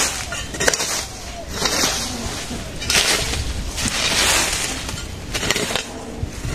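Hoe blade scraping and chopping into grassy soil in repeated, irregular strokes about a second or so apart, as weeds are cleared.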